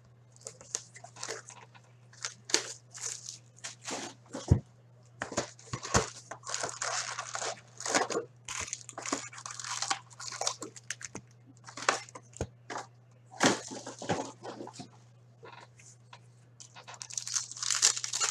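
Hand unboxing of a cardboard hockey card hobby box: the box flaps and sealed foil packs rustle, click and crinkle as the packs are pulled out. Near the end a foil pack wrapper is torn open with a louder burst of crinkling.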